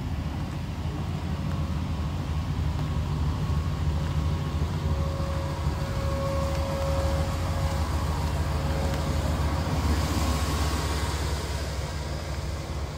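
Low rumble of a passing motor vehicle that builds up and then eases off, with a faint steady whine held for a few seconds in the middle.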